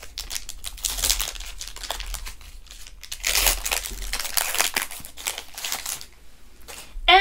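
Foil Pokémon booster pack wrapper being ripped open by hand along a partial scissor cut, crinkling and tearing, with louder bursts about a second in and from about three to five seconds in.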